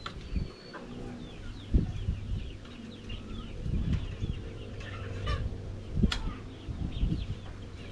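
Backyard chickens clucking, with many quick high chirps throughout. A few dull knocks sound, about two seconds in and again near six seconds.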